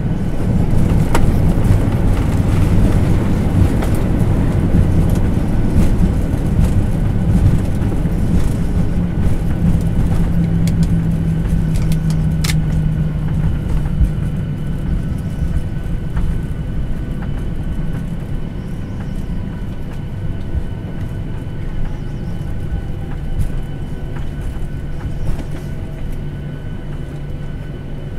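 Cabin noise of a Boeing 737-800 airliner heard from a passenger seat: a steady low rumble of engines and airflow, loudest in the first half and slowly easing off.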